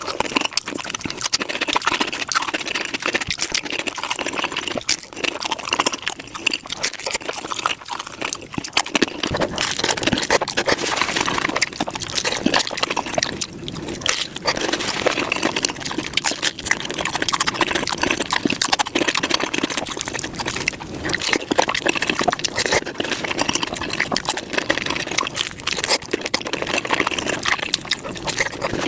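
Close-miked taco eating, wet chewing and crunching played back at five times speed. The bites and mouth sounds run together into a fast, dense crackle.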